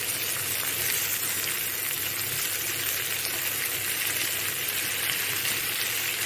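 Hot oil sizzling in a kadai as freshly added raw okra pieces fry on a tempering of onions, green chillies, curry leaves and peanuts: a steady, even hiss.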